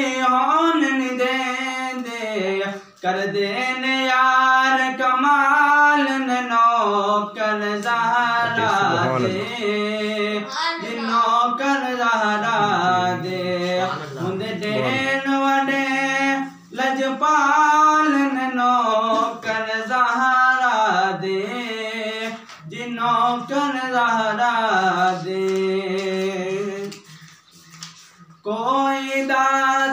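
A man singing a Punjabi naat unaccompanied, in long melodic phrases with short breaks between lines and a longer pause near the end.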